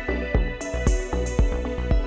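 Electronic background music with a steady beat and sustained synthesizer tones.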